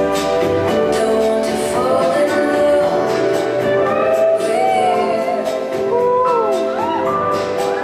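Recorded song played over loudspeakers: a singing voice with gliding, held notes over sustained instrumental accompaniment.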